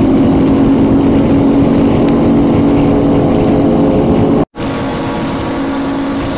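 Motorcycle engine running steadily at cruising speed, with heavy wind and road rumble on the microphone. About four and a half seconds in, the sound cuts out for an instant, then comes back a little quieter.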